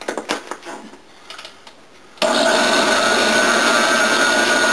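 Countertop blender: a few knocks and clicks as its plastic lid is pressed on. About two seconds in, the motor starts abruptly and runs loud and steady with a high whine, puréeing soup until smooth.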